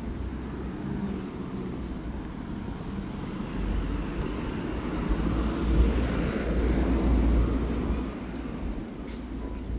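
A motor vehicle passing by with a low rumble and tyre hiss, growing louder to a peak about six seconds in, then fading.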